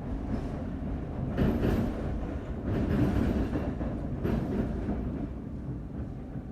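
Lisbon Metro train running on its rails: a steady low rumble with three louder rushes of noise, about one and a half, three and four and a half seconds in, then easing off toward the end.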